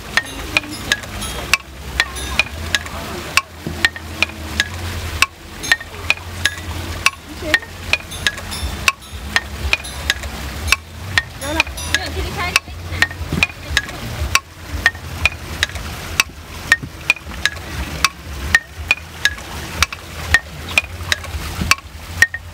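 Water-wheel-driven mechanical xylophone: a turning cam shaft lifts wooden mallets that drop onto wooden bars, giving a steady, uneven run of short pitched wooden knocks, a few a second, over a low steady hum.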